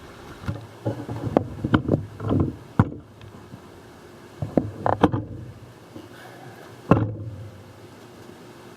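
Camera handling noise: a series of knocks, bumps and rubbing as the camera is moved and zoomed, ending in one sharp knock about seven seconds in, then a steady faint hiss.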